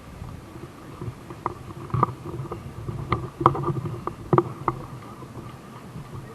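Airsoft gunfire: about six sharp single cracks of shots or BB hits, irregularly spaced, over a steady background hum.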